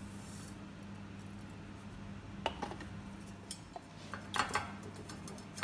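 Freshly ground wheat flour poured from a stainless steel grinder cup into a wire-mesh sieve with a soft hiss. Then light metallic clicks and rattles as the sieve is handled and shaken to sift the flour, busiest near the end.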